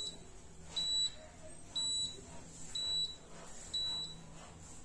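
Maximus MAX-005V tabletop dishwasher's electronic beeper sounding a row of short, high beeps, about one a second, five in all.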